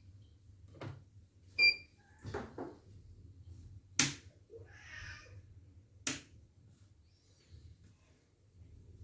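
A few scattered clicks and knocks with one short electronic beep about one and a half seconds in, typical of handling and pressing the control panel of a CNY E900 computerised embroidery machine.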